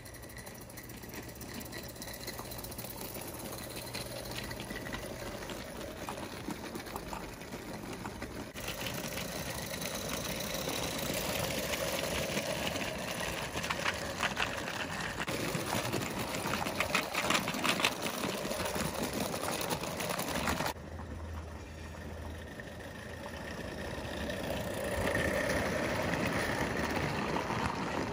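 Mamod Mk 3 live steam toy locomotive running on garden track hauling its wagons: a fast, even mechanical chuffing and clatter from its oscillating cylinders and wheels, getting louder in the middle as the train nears.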